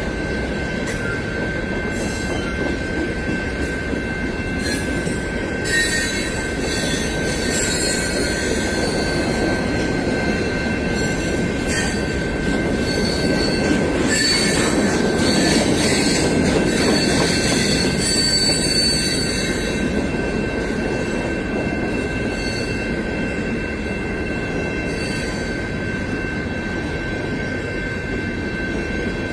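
Long freight train's cars rolling past with a steady rumble and wheels squealing. Higher-pitched squeals come and go over it, strongest around the middle.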